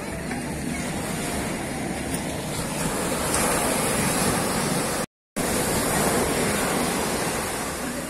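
Sea surf breaking and washing up a sandy beach: a steady rush of waves that swells louder in the middle, with the sound cutting out completely for a split second about five seconds in.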